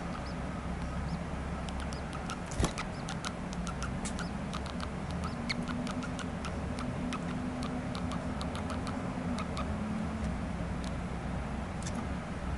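Baby birds' rapid, high-pitched begging chirps during feeding, short and irregular, with one sharper click about two and a half seconds in, over a steady low hum.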